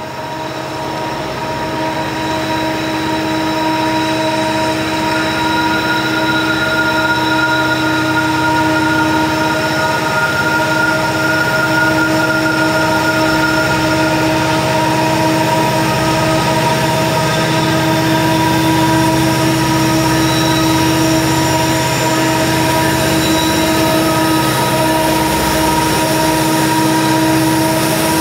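Union Pacific diesel locomotives hauling a coal train up a grade, their engines working under load. The sound grows louder over the first few seconds as they approach, then holds steady, with whining tones over the engine rumble.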